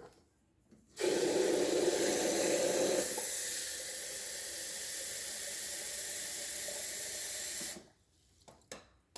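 Tap water running into an electric kettle to fill it, turned on about a second in and shut off near the end. The sound is fullest at first, then eases to a steadier, lighter run about two seconds after the tap opens.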